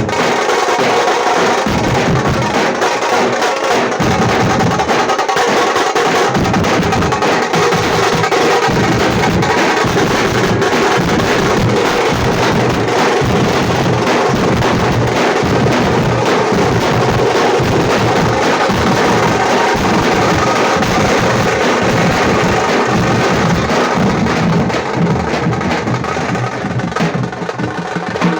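Tamate, a Karnataka folk frame drum beaten with sticks, played in a fast, dense, continuous rhythm that eases off somewhat in loudness over the last few seconds.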